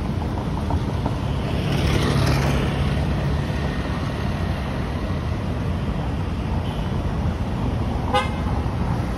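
Street traffic with a steady low rumble of vehicle engines and tyres. One vehicle swells past about two seconds in, and a short horn toot sounds near the end.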